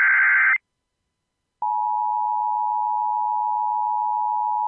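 The end of an Emergency Alert System SAME header data burst, a harsh digital screech that stops about half a second in. After a second of silence, the EAS attention signal starts: a steady two-tone beep that announces an emergency alert broadcast, here a tornado warning.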